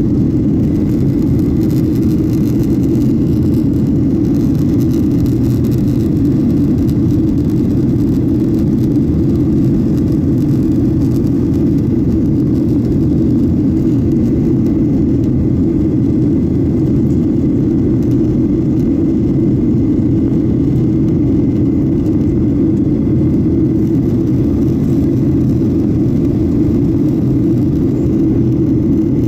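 Steady, deep drone of jet engines and rushing air heard inside the cabin of a jet airliner climbing out after take-off.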